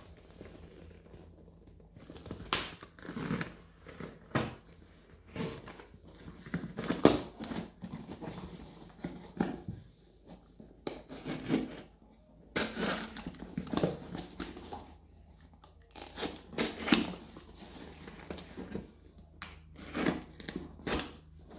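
A sharp knife cutting along the bonded seams of a Mitre Delta pro match football's outer casing, in many short, irregular strokes.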